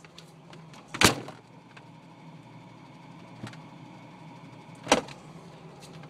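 Two sharp knocks about four seconds apart, with a few faint ticks between them, as things are handled on the shelves of an open refrigerator.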